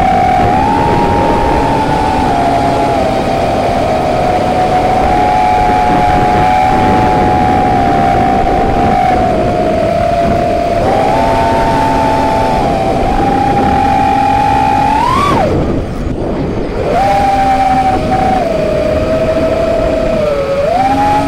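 Brushless motors and propellers of a 5-inch FPV freestyle quadcopter (T-Motor F40 II 2400kv motors, DAL 5060 props) whining in flight, heard from its onboard camera, the pitch stepping up and down with the throttle. About three-quarters through the whine rises sharply, then the motors cut back and go quiet for about a second before spooling up again.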